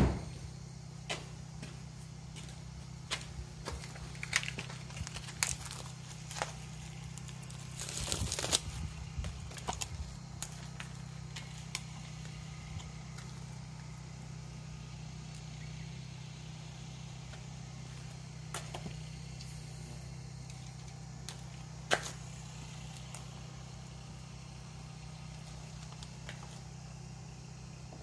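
Scattered clicks and knocks from an aerosol can of engine conditioner being handled and its cap taken off, with a short hiss about eight seconds in, over a steady low hum.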